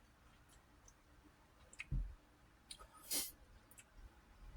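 Faint scattered clicks, a soft low thump about two seconds in, and a short breathy hiss just after three seconds in.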